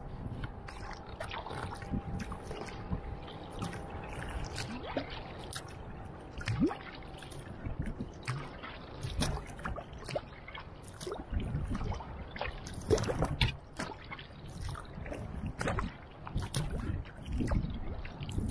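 Wooden Greenland paddle blades dipping into the sea with each kayak stroke: repeated irregular splashes and drips, with water gurgling along the hull.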